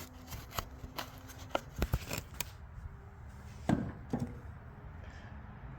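Scattered light clicks and taps of handling tools or metal parts, with two louder knocks a little under four seconds in.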